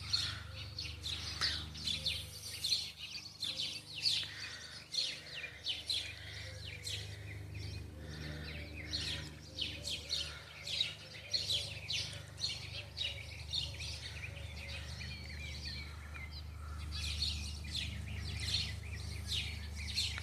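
Songbirds chirping outdoors, a dense run of short high chirps several times a second, over a steady low hum.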